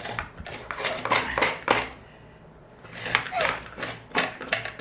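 Coconut halves being scraped against the serrated blade of a wooden coconut grater: a quick run of rough scraping strokes, a lull of about a second, then another run.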